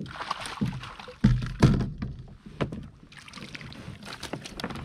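Irregular knocks and thumps against a plastic fishing kayak, the heaviest a little over a second in, as a freshly caught pink snapper is dealt with on board.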